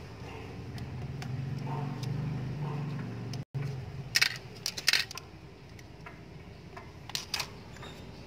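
A low steady hum for the first few seconds. Then sharp clicks and rattles in two short clusters, about four seconds in and again about seven seconds in, as gloved hands wrap electrical tape around corrugated plastic conduit.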